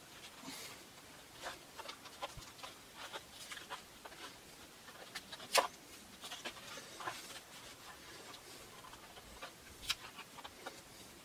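Canvas keys (wedges) being fitted into the corner slots of a wooden canvas stretcher frame by hand: scattered small clicks and taps, with a sharper click about halfway through and another near the end.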